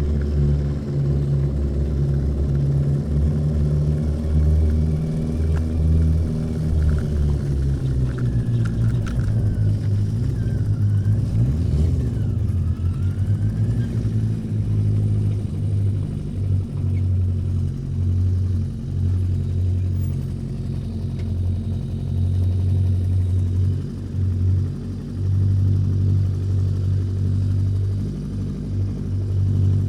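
1981 Yamaha XJ650 Maxim's air-cooled inline-four engine running under way. Its pitch falls and wavers for a few seconds midway, then holds steady.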